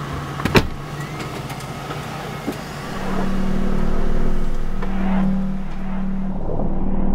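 A car door slammed shut, one sharp bang about half a second in. About three seconds in, a steady low drone comes up and holds.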